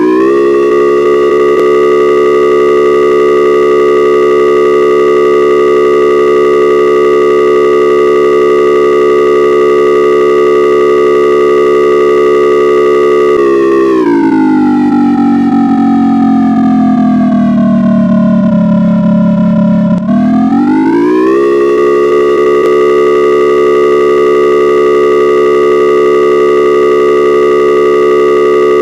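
Emergency-alert style siren alarm: a loud chord of several steady pitches held for about thirteen seconds, then sliding slowly down in pitch for about six seconds before sweeping back up and holding steady again.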